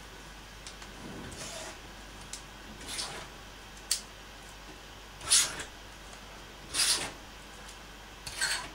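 Hair clips being picked up off a desk and snapped into hair in quick succession: a series of short clicks and rustles, the loudest about five seconds in.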